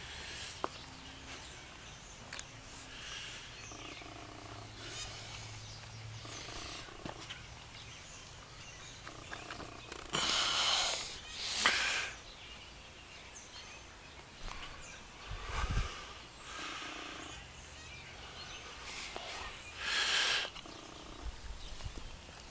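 Miniature Australian shepherd puppies making low play noises, with several loud bursts of rustling as a puppy is handled close to the microphone, the loudest about ten to twelve seconds in.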